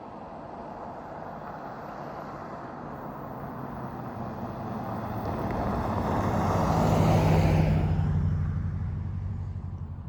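A road vehicle passing close by: tyre and engine noise builds slowly to a peak about seven seconds in, then falls away, leaving a low engine drone as it moves off.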